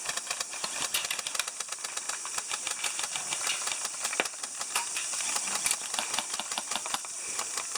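Airsoft guns firing in rapid, irregular clicking bursts over a steady hiss.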